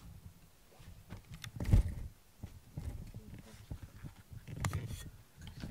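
Handling noise close to the microphone: irregular rubbing and soft thumps, with one loud thump a little under two seconds in and another cluster of knocks near the end.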